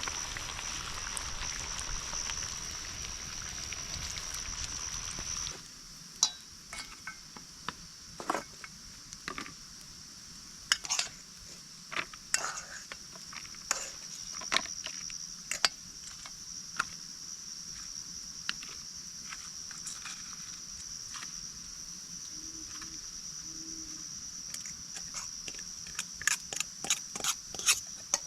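Metal utensil clinking and scraping against a pan or plate, in a series of sharp clicks, over a steady high chirr of crickets. For the first few seconds an even hissing haze sits under it and then stops suddenly.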